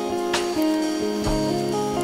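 Background music: guitar with a drum beat.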